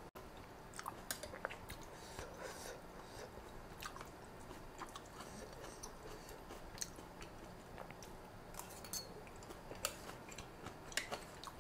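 Close-miked chewing of a mouthful of khanom chin rice noodles in coconut-milk curry with raw leafy greens: soft, quiet chewing with many small wet mouth clicks scattered throughout.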